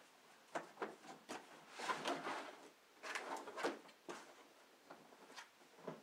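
Cardboard box rustling and scraping as a skate ramp is slid out of it by hand, with a few sharp knocks and two louder stretches of scraping about two and three seconds in.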